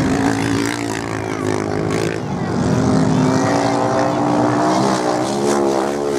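Off-road motorcycle engines running hard during a beach sand race, several at once, with one engine's pitch rising as it accelerates near the end.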